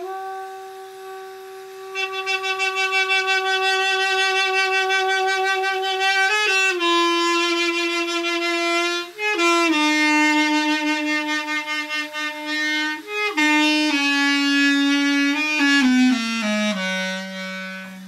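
Duduk playing a slow melody: a long held note with vibrato, then stepping down through several held notes to a low final note near the end.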